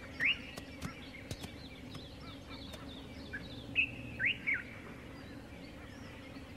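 Birds chirping: short rising calls, one just after the start and a cluster a little past the middle, over scattered faint clicks and a low steady hum.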